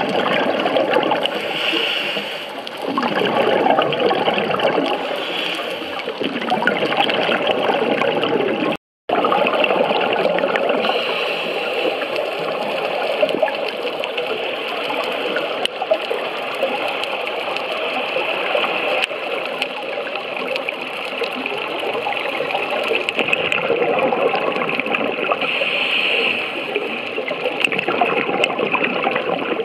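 Underwater bubbling and hiss of scuba divers' exhaled breath, heard through an underwater camera housing, swelling and easing with each breath. The sound breaks off for a moment about nine seconds in, then carries on.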